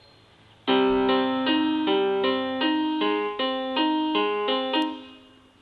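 Music: a short electric piano or keyboard tune of evenly spaced chords, about two and a half a second. It starts after a brief silence and fades out near the end.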